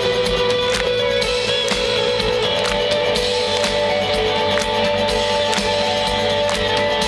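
Live rock band playing: electric guitar chords held over a steady drum beat.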